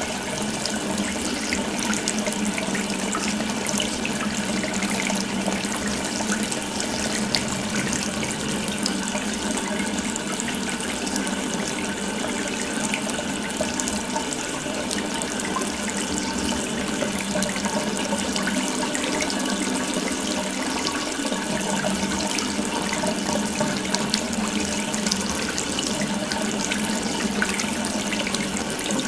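Water running steadily from an open tap, a continuous splashing stream with no change.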